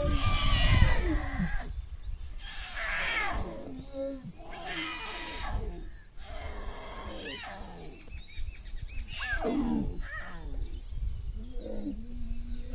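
Asiatic lions of a pride of lionesses and cubs calling to one another: a series of about six short calls, one every two seconds or so, each wavering up and down in pitch.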